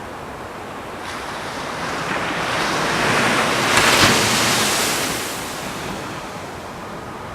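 Ocean wave breaking: the surf noise swells, crashes sharply about four seconds in, then washes back down to a steady hiss.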